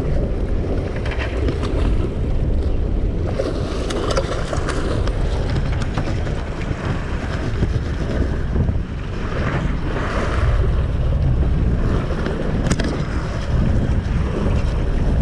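Wind buffeting the microphone over sea water rushing and splashing along a boat's hull, a loud, steady rumble that swells and eases.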